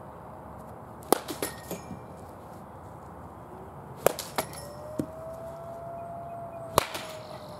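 A baseball bat hitting a baseball three times, about a second, four seconds and nearly seven seconds in, each sharp crack followed by a few smaller knocks.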